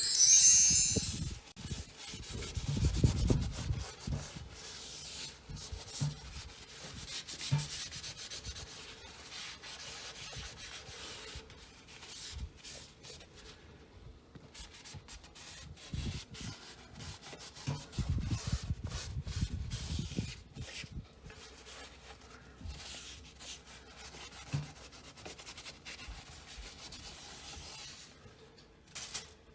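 Hand work rubbing and scraping on a hard surface, irregular, with scattered clicks and a few dull knocks; it opens with a brief loud hiss.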